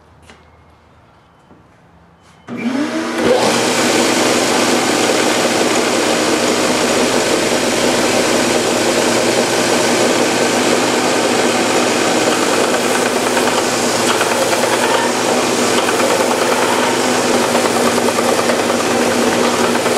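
Benchtop belt sander switched on about two and a half seconds in, with a brief rising whine as the motor comes up to speed, then running steadily while walnut pieces are pressed against the 120-grit belt. A couple of faint clicks come before it starts.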